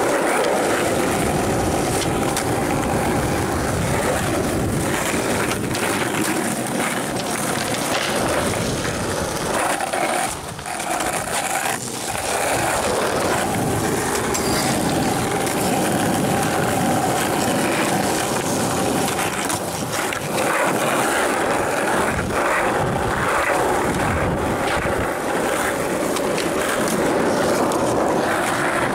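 Skateboard wheels rolling on rough asphalt with a steady roar, broken now and then by sharp clacks of the board.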